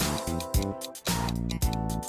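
Background music with a steady beat and plucked, strummed guitar.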